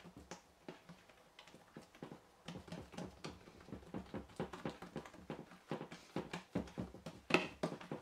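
Hands pressing and patting two stacked, oiled rounds of yeast dough flat on a wooden tabletop: a run of soft, irregular pats, several a second, with a louder slap a little after seven seconds in.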